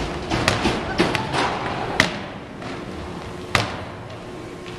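A handful of sharp thuds of medicine balls and sandbags hitting a hardwood gym floor, irregularly spaced, the loudest about two seconds in, over the general noise of a large gymnasium.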